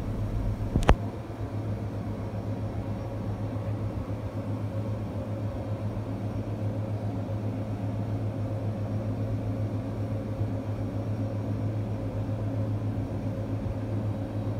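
Steady low mechanical hum of running machinery, even in level, with a single sharp click about a second in.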